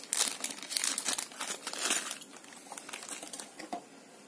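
Thin clear plastic packaging bag crinkling as it is handled and opened, dense for about the first two seconds and then thinning to light handling, with a small click near the end.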